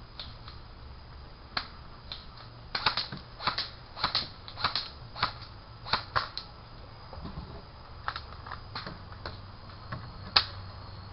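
Airsoft guns firing: a string of sharp, irregular clicks and pops, some in quick pairs. They come about twice a second for a few seconds, then sparser, with one loud shot near the end.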